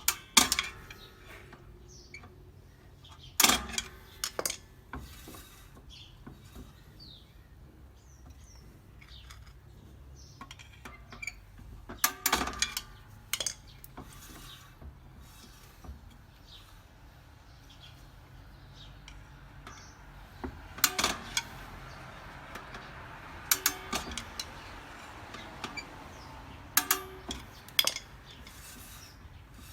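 Scattered metallic clinks and knocks, a dozen or so at irregular intervals, over a low steady background noise.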